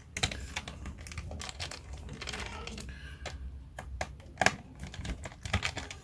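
Irregular light clicks and taps of hands working at the plastic bottom cover of a Dell Latitude 7290 laptop.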